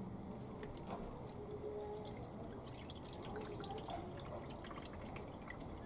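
Coolant poured from a bottle into a Nissan Micra K12's plastic coolant expansion tank, trickling and splashing in the filler neck. The pour starts about a second in as many small drips and splashes.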